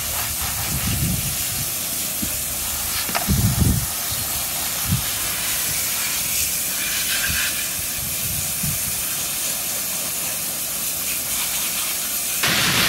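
Handheld garden hose spray nozzle hissing steadily as a fine jet of water washes mud off plastic toys, a toy helicopter held in the hand, with a few low bumps. The spray gets louder near the end.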